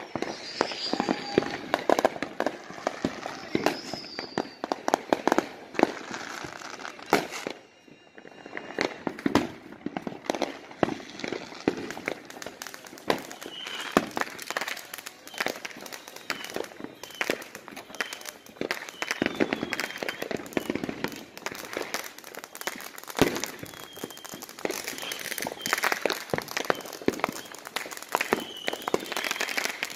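Consumer fireworks going off: a rapid, irregular run of sharp pops and crackles, with a brief lull about eight seconds in.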